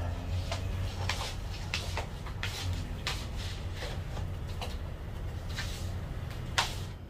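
Irregular clicks and knocks of things being handled in a small room, over a steady low hum, with one sharper knock near the end.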